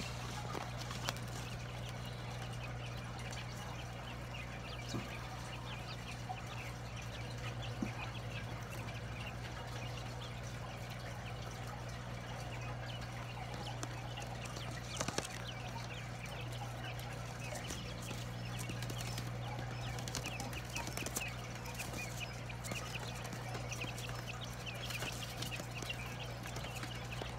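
Newly hatched quail chicks peeping, many short high cheeps throughout and busier in the last several seconds, over a steady low hum. A few light taps are heard now and then.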